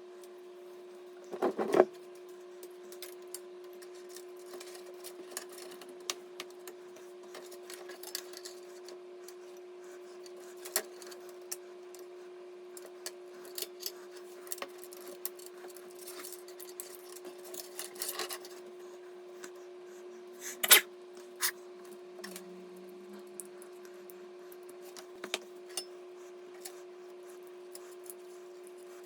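Scattered small clicks, taps and rustles of hardware being handled, with a louder clatter about a second and a half in and a sharp knock about two-thirds of the way through, over a steady hum.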